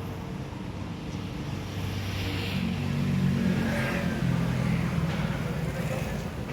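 A motor vehicle engine running, its pitch and loudness rising a little in the middle as it revs up.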